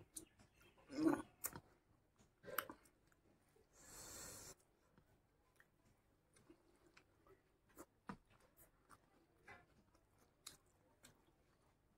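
A person eating with his hand and chewing, soft and wet: a few louder mouth sounds in the first three seconds, a breathy hiss about four seconds in, then quiet scattered clicks of chewing.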